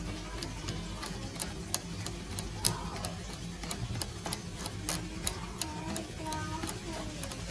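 Chopsticks tapping and scraping against a stainless-steel mesh strainer as prahok is pressed through it, giving irregular sharp clicks, the loudest a little before three seconds in, over the low rumble of the soup boiling in a metal pot.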